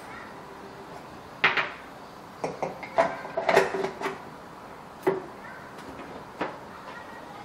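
Hard plastic clicks and knocks as a hand blender's chopper attachment is put together: the blade is set into the bowl and the lid is snapped on. The sounds are irregular, with a cluster of clicks about three and a half seconds in and single knocks near five and six and a half seconds.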